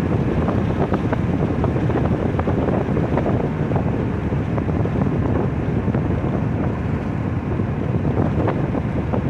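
Wind from a moving car buffeting the microphone: a steady, dense rushing noise with a heavy low rumble and small irregular gusts, mixed with the car's road noise.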